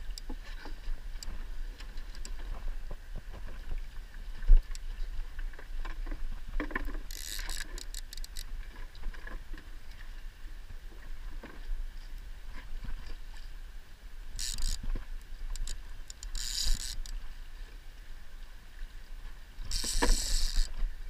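Spinning reel on a salmon rod being wound in, its gears ticking. A low rumble runs under it, and a short rushing burst comes now and then.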